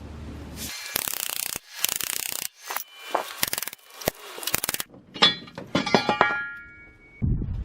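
A ball joint separator fork being driven between a Jeep Cherokee's steering knuckle and its ball joint to pop the tapered stud loose. It starts with two quick runs of rapid metal-on-metal strikes, then single clanks, some of which leave a metallic ringing.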